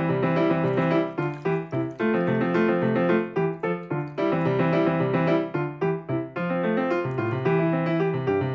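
Background piano music: a quick, steady run of notes.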